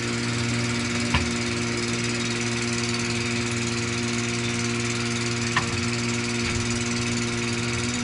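An engine running steadily at an even idle, with a short sharp knock about a second in and another about five and a half seconds in.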